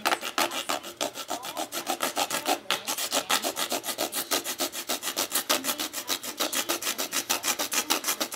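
Forever Sharp all-steel knife sawing rapidly back and forth through a white object, a rasping stroke about seven times a second.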